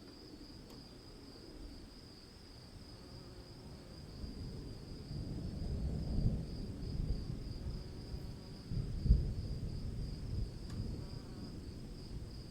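Crickets trilling steadily in the background while distant thunder rolls in a low rumble, swelling from about a third of the way in, with one louder, sharper peak of thunder about three-quarters through.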